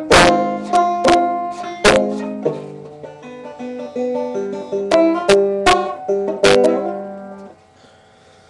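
A banjo being played, with sharply plucked chords and notes ringing out one after another. The playing stops about a second before the end.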